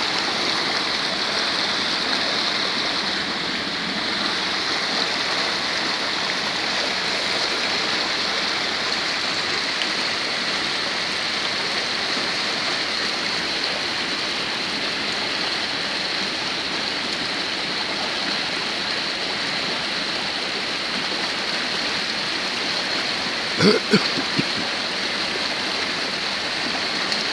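Steady rushing noise of heavy rain and muddy runoff water flowing down a dirt street. A brief, sharp, louder sound cuts in once, near the end.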